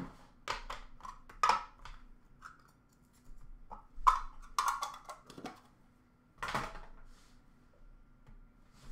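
Boxes and packs of trading cards being handled in a plastic bin: scattered light knocks and rustles, the loudest about four seconds in, over a faint steady hum.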